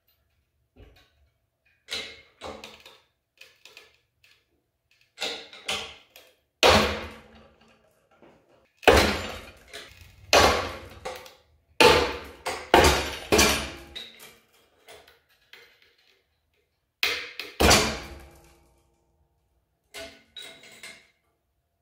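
Epoxied steel twist wires tearing out of a wooden test board under the steady pull of an engine hoist, each failure a sharp crack followed by the steel hook and crane scale clanking and rattling on the chain. A series of such cracks and clanks, the loudest around nine to thirteen seconds in.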